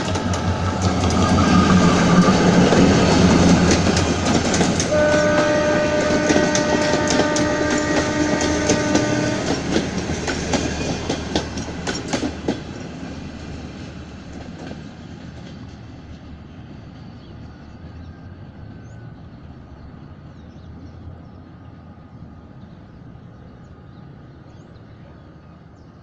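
Diesel-hauled passenger train, an EMD GT22CW locomotive with three coaches, running past with wheels clattering over rail joints and engine rumble. About five seconds in its multi-tone horn sounds one long blast of about four seconds; after about twelve seconds the clatter stops and the sound fades away.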